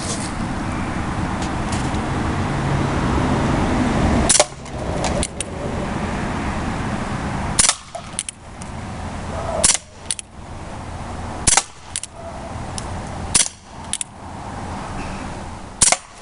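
Umarex Colt Single Action Army CO2 BB revolver fired six times, one sharp pop about every two seconds, each shot followed by a few softer clicks. A steady low rumble runs under the first four seconds, before the first shot.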